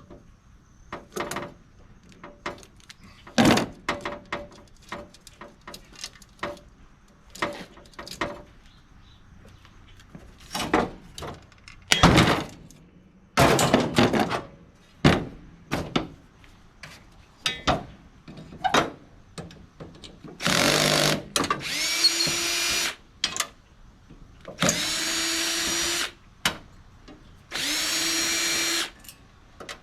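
Short clanks and clatters of parts and screws being handled while a steel PTAC unit is taken apart. Then, from about two-thirds of the way in, a power drill runs three times, a second or two each, its motor whine rising as it spins up to drive screws.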